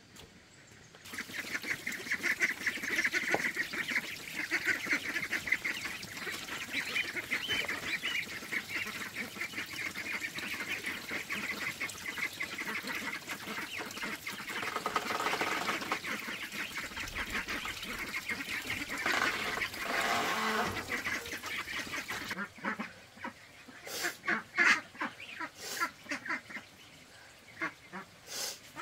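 A large flock of waterfowl calling in a dense, continuous chorus of quacks and honks, thinning to scattered separate calls about 22 seconds in.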